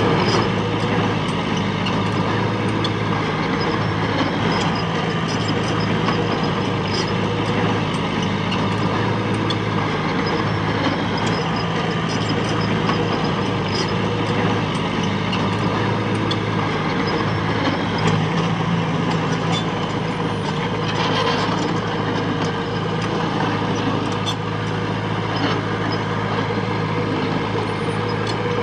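Diesel engine of earth-moving machinery running steadily under work, with scattered light metallic clicks and clanks over it.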